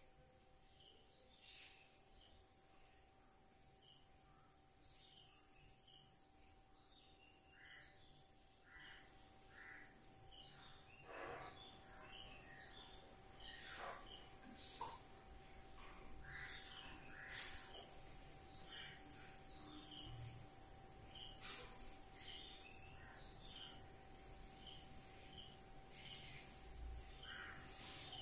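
Insects trilling steadily at a high pitch, with many short bird chirps scattered over it that grow busier and louder about a third of the way in.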